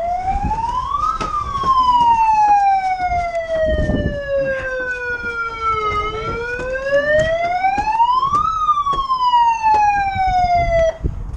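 A siren wails in two slow cycles, rising quickly and then falling slowly in pitch each time, and cuts off abruptly near the end. Scattered faint clicks sound underneath.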